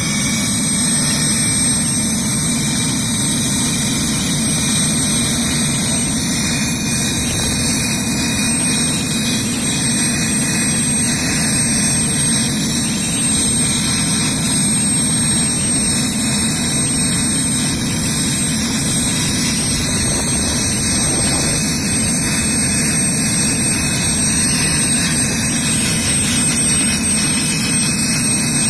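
Helicopter's turbine engines running on the ground: a steady rushing noise with a thin high whine held constant.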